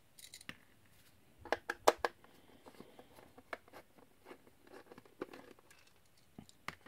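A screwdriver backing small screws out of a plastic battery tester case: scattered light clicks and scrapes, with a few louder clicks about one and a half to two seconds in.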